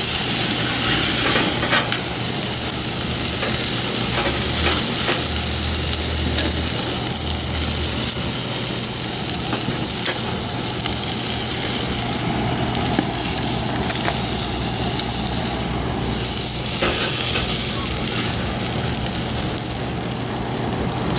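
Chicken leg quarters sizzling as they sear directly over hot lump charcoal on a grill grate, with a few sharp clicks of metal tongs as the pieces are turned and lifted.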